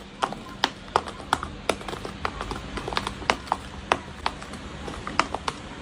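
A rapid, irregular series of sharp clicks or taps, about three or four a second, over a faint steady hum.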